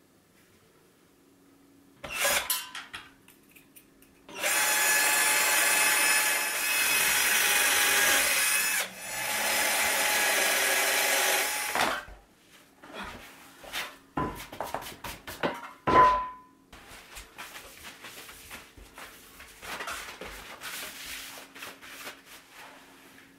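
Cordless drill driving screws through steel bench-leg plates into a wooden seat: a short burst about two seconds in, then a long steady whine lasting about seven seconds with a brief break midway. Then clicks and knocks of parts being handled, a sharp knock with a short ring about sixteen seconds in, and quieter handling after.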